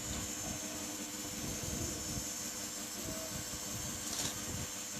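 Steady hum and hiss with a few faint small clicks and knocks.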